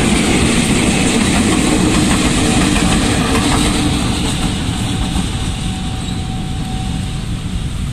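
Two coupled KAI CC 206 (GE C20EMP) diesel-electric locomotives passing close by: loud engine rumble and wheels on the rails, fading slowly as they move away.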